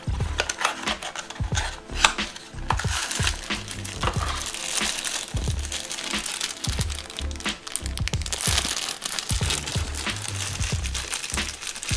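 Thin plastic wrapping crinkling and rustling as earphones are unwrapped from it by hand, over background music with a steady low beat.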